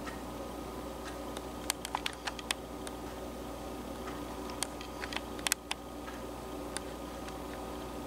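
Irregular sharp taps and clicks of Steller's jays and a red-shafted flicker pecking at seed on a feeder tray, in two quick clusters with a last tap near the end, over a steady low hum.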